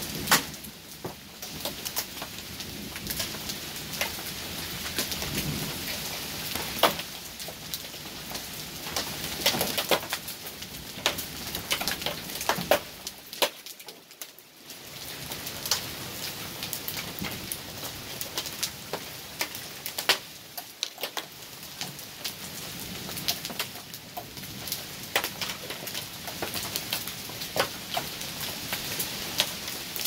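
Heavy rain falling steadily on a lawn, driveway and pavement, with many close drops ticking sharply and irregularly over the rushing.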